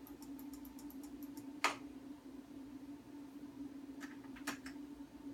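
Clicking of keys and buttons on an ultrasound machine's control panel as the scan settings are changed: a quick run of light ticks, a sharper click about a second and a half in, and a few more clicks near the end, over a steady low hum.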